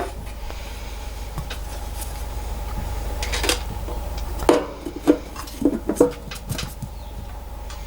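Back panel of a metal lathe being handled and fitted back in place: scattered light knocks and rattles, bunched together around the middle, over a steady low hum.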